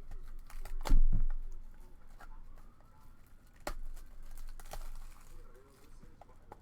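Scattered small clicks and rustling of things being handled on a tabletop, with a loud knock about a second in.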